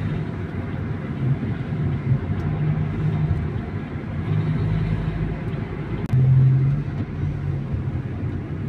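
Car driving on a paved road, its engine hum and tyre noise heard from inside the cabin. The engine note grows louder for about half a second around six seconds in.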